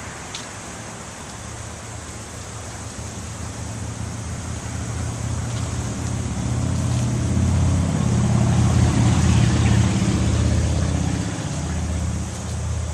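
Highway traffic: a steady hiss of road noise, with a vehicle's low rumble swelling over several seconds and easing off near the end.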